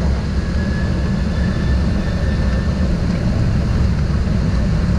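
Boeing 737-800 on its takeoff roll heard from the cockpit: a loud, steady rumble of the CFM engines at takeoff thrust and the wheels on the runway, with a faint whine slowly rising in pitch.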